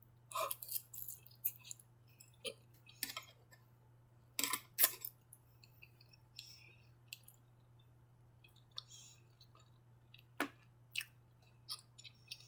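Close-miked chewing and mouth sounds of eating lo mein and orange chicken: irregular wet clicks, smacks and crackles, loudest about four and a half seconds in, over a steady low hum.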